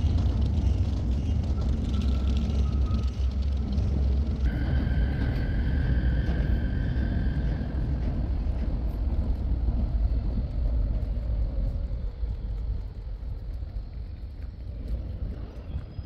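Docklands Light Railway train running over the elevated viaduct: a steady low rumble, with a high whine about four seconds in that lasts a few seconds. The rumble fades away near the end.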